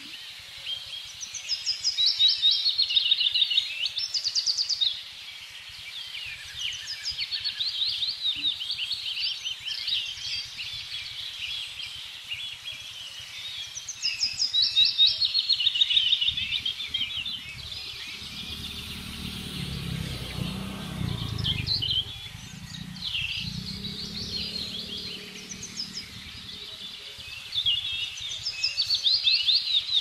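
Several songbirds singing together in the morning, with loud spells of rapid trilling phrases about every ten to fifteen seconds over a steady outdoor background. A low rumble swells and fades midway.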